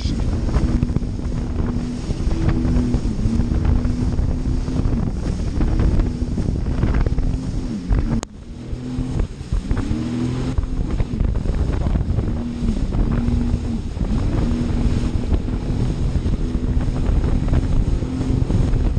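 Jet ski engine running at speed, its pitch dipping and climbing back again and again as the throttle is eased and opened, with heavy wind buffeting the microphone. The sound drops out briefly about eight seconds in.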